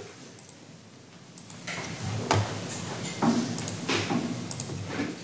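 Irregular clunks, knocks and rustling of things being handled at a desk, starting about a second and a half in and going on in a loose run of a few seconds.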